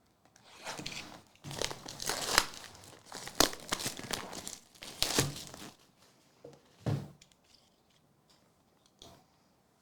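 A foil trading card pack is torn open and its wrapper crinkled, in a run of crackly bursts lasting about five seconds, followed by a few light clicks.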